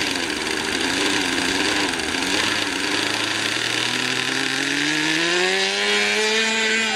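ASP 52 glow engine of a radio-controlled model plane running as the throttle is opened for take-off. Its pitch climbs smoothly from about four seconds in and then holds high.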